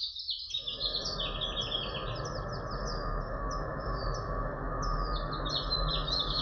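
Ambient experimental music built on birds chirping: quick runs of short, high, falling chirps over a continuous low noisy bed with a faint steady hum. The low bed drops out for a moment right at the start.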